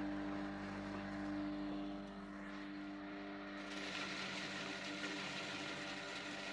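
Motor-driven feed chopper ('blender' machine for poultry feed) running with a steady hum while shredding cassava leaves; just past halfway a hissing rush joins the hum.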